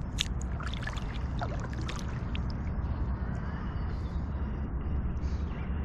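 Water gurgling and lapping against a moving kayak while trolling, with a few light clicks or drips in the first two seconds.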